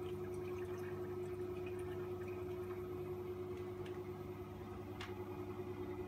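LG F14U1JBS2 inverter direct-drive washing machine running near the end of its Speed 14 quick cycle: a steady motor hum with faint water sounds and small ticks, and one sharper tick about five seconds in.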